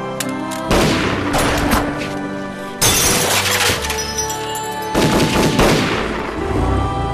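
Dramatic orchestral film score with sound effects of bursts of gunfire and shattering glass cutting across it. The loudest crash, with a long glassy hiss, comes about three seconds in, and another burst about five seconds in.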